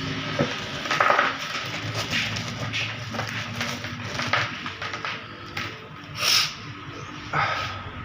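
Irregular knocks and clatter of hard objects being handled, with a short hiss about six seconds in, over a faint low steady hum.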